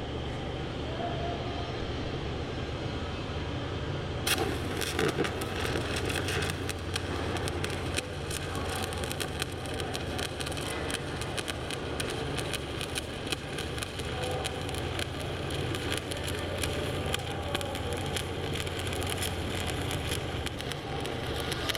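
Stick (SMAW) welding arc on aluminium plate with an aluminium electrode, crackling and spitting continuously, over a steady low hum. About four seconds in there is a sharp crack, and the crackle grows denser from then on.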